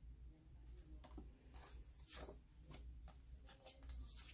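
Faint rustling and light clicks of paper cards and a plastic photocard sleeve being handled, a scatter of short soft scrapes with the clearest about two seconds in and several close together near the end, over a low hum.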